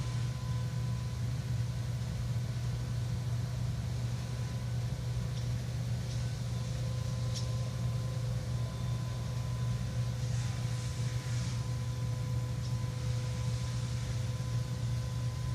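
Steady low hum throughout, with a few faint, brief high-pitched chirps scattered through the middle from the small flying animals, which the uploader takes for bats or birds.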